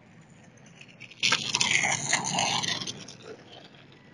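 Outdoor ambience picked up by a phone's microphone, with a sudden loud rushing, scraping noise a little over a second in that lasts about a second and a half, then fades back to the low background.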